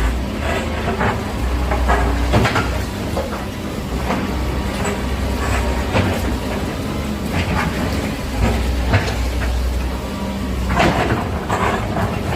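Excavator's diesel engine running steadily under repeated knocks and clattering of demolition debris, several sharp cracks about a second from the end.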